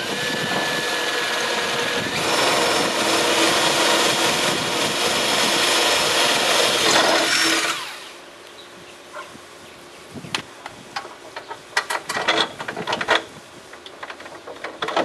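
Cordless drill spinning a 3/8-inch bit, first running lightly, then loud under load as it bores through the metal mounting frame into the wooden gate for about six seconds before stopping suddenly. After that come a run of light clicks and knocks.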